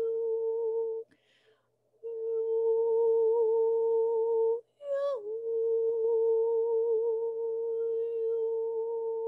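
A voice humming one steady held note. It breaks off twice, about a second in and again near the middle, with a soft breath in the first gap. It slides slightly down into the note as it resumes.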